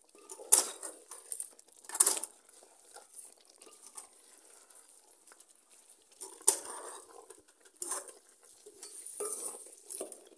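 Wooden spoon stirring a thick beef and carrot stew in an aluminium pot, with several sharp knocks and scrapes of the spoon against the pot between softer stirring sounds.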